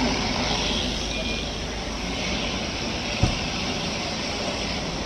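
Steady background noise of a large workshop, with one sharp click about three seconds in.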